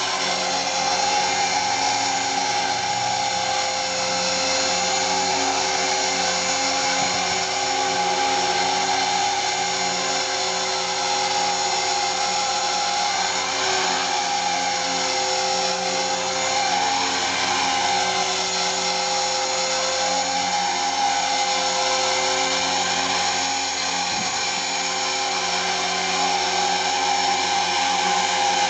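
KDS 450 electric RC helicopter hovering: a steady whine from its electric motor, new main drive gear and tail drive belt, with the rotor hum underneath. The pitch wavers slightly now and then as it holds the hover.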